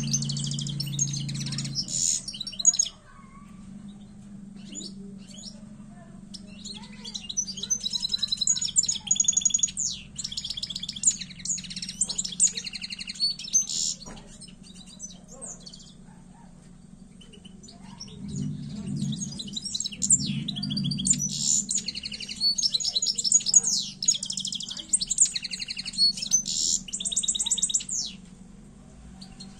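Caged finch singing: fast, high twittering song in bouts of several seconds, broken by short pauses.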